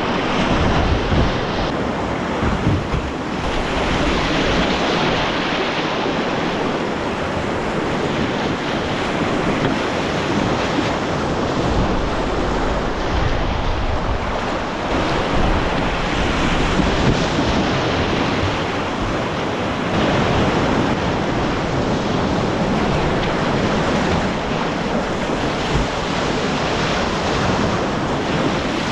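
Rushing whitewater of a river rapid around a kayak, a steady loud wash, with wind buffeting the microphone in low gusts.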